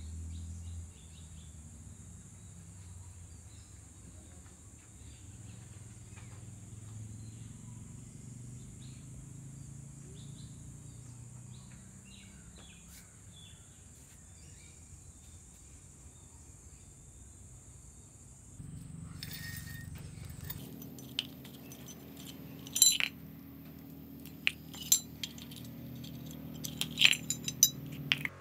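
Metal bicycle parts clinking on a tile floor as hands pick up and set down training-wheel brackets, a bolt and plastic wheels, with a dozen or so sharp clinks in the last several seconds. Before that there is only a steady low background hum with a steady high-pitched whine.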